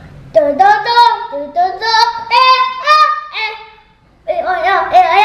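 A young child singing a short tune in held notes that step up and down, with a brief pause about four seconds in before the voice comes back.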